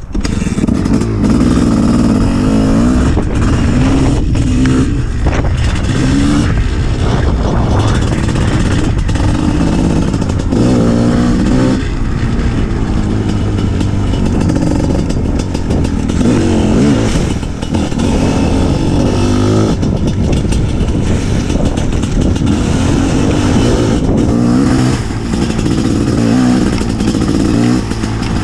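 Gas Gas EC 250 two-stroke enduro motorcycle being ridden, heard close up from the rider. Its revs climb and fall again and again as the throttle is opened and closed, with a couple of brief lifts off the throttle.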